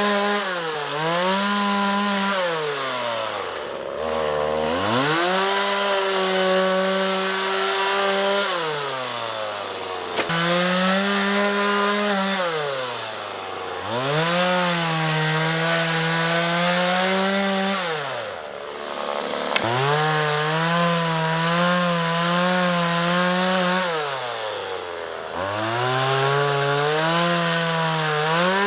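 McCulloch MAC 3818 two-stroke chainsaw revving to full throttle and cutting through branches, its pitch held high for a few seconds at a time, then dropping back to idle between cuts, about five times over.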